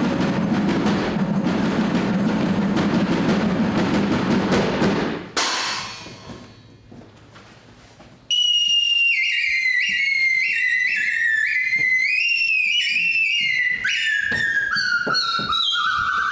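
Live percussion accompaniment: a dense drum roll on drums, ending in a crash about five seconds in that rings away. After a few seconds of near quiet, a high, whistle-like melody starts and slides gradually downward in steps.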